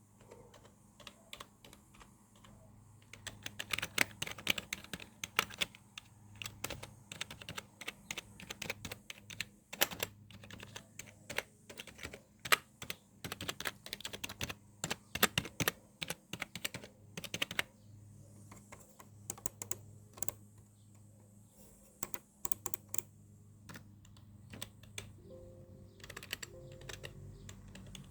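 Computer keyboard typing: irregular runs of keystrokes, dense for most of the first half and sparser later, over a faint steady low hum.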